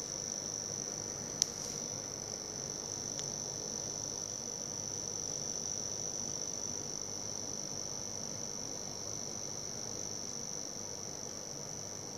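Cooler Master V700 power supply giving off a steady, high-pitched buzz over the hiss of its spinning fan. The buzz comes from the power supply itself, since it persists with no other hardware attached. A sharp click comes about a second and a half in, and a fainter one about three seconds in.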